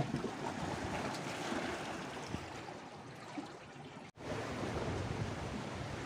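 Sea waves washing against shore rocks, with wind on the microphone. The sound cuts out for a moment about four seconds in.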